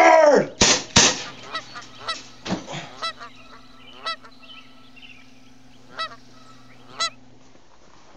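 Geese honking: a cluster of loud calls in the first second, then single short honks spaced a second or more apart.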